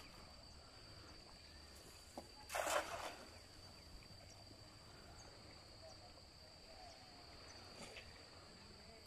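A thrown cast net landing on the water: a brief splash of the net and its sinkers about two and a half seconds in, with a faint steady high whine throughout.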